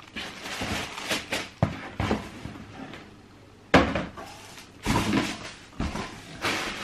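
Cardboard shoeboxes being handled, with rustling and scraping and a few sharp knocks as a box or lid is set down. The loudest knock comes near the middle.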